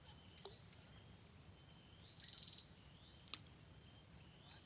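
A steady, high-pitched insect drone runs underneath repeated short rising chirps. About two seconds in comes a brief rapid trill, and a little after three seconds a single sharp click.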